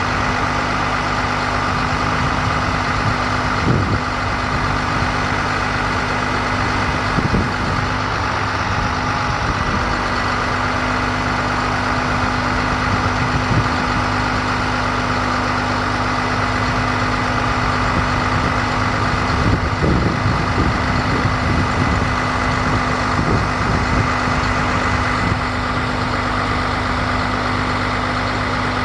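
International 4300 bucket truck's diesel engine idling steadily, with a constant low hum and a few faint knocks.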